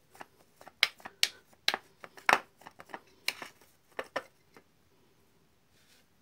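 A spoon clicking and scraping against an enamel plate as a raw egg and seasoning powder are beaten together: a run of sharp, irregular clicks.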